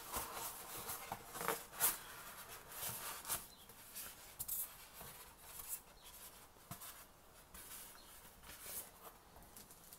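Packaging being handled: a polystyrene foam lid lifted out of a cardboard box, with scattered faint rustles and scrapes of foam, cardboard and plastic wrap.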